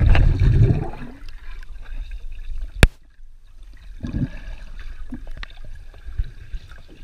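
Underwater sound of a dog diving in a swimming pool, heard through a submerged camera: a loud muffled rush as it plunges in, then low gurgling and bubbling as it swims down to the floor, with one sharp click about three seconds in.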